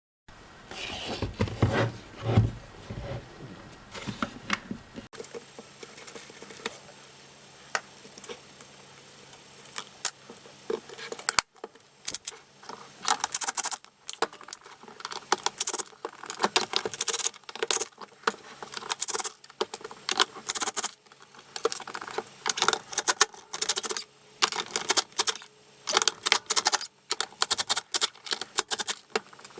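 Hands handling the plastic and metal parts of a Makita CL182FD cordless vacuum as it is taken apart: irregular clicks, taps, rattles and short scrapes, with some heavier knocks in the first few seconds.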